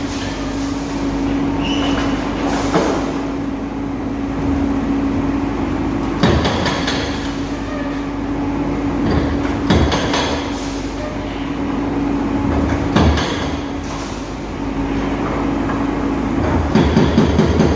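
Hydraulic excavator running steadily under load while demolishing reinforced concrete, with heavy knocks and crashes every few seconds. Near the end the hydraulic breaker starts hammering rapidly.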